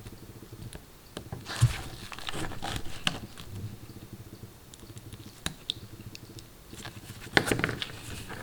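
Small clicks and scraping as a screwdriver presses down the retaining clips of a plastic coil pack connector and the wire pins are worked out of it. A sharp knock comes about a second and a half in, and a busier cluster of clicks near the end.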